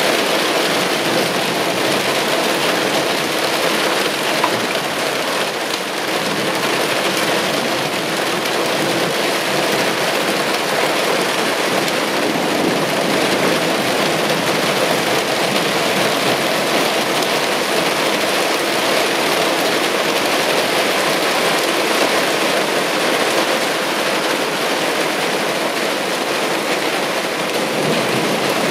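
Heavy downpour of large raindrops falling steadily on hard surfaces, a dense, even rush of rain.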